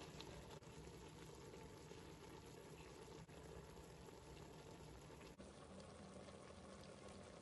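Faint, steady sizzling and bubbling of meat chunks browning in oil and their own juices in a stainless steel pot, with spices sprinkled over them.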